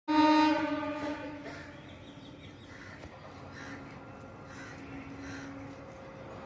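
A train horn sounds at the start and fades away over about a second and a half. Crows caw several times, and a fainter, steady horn tone holds for about two seconds in the middle.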